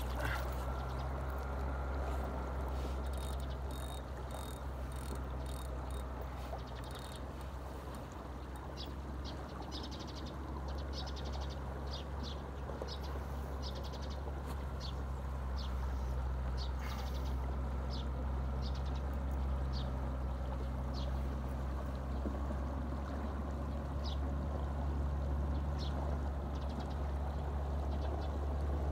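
Steady low rumble of wind on the microphone over flowing river water, with scattered light clicks and ticks through the first two-thirds.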